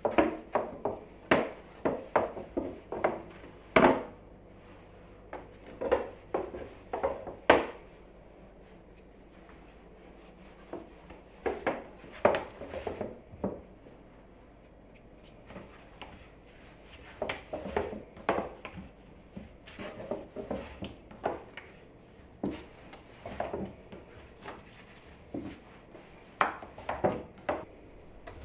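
Wooden rolling pin rolling out pastry dough on a floured wooden board: repeated short knocks and rubs of wood on wood, in runs with a few quiet pauses, the sharpest knocks about four and seven and a half seconds in.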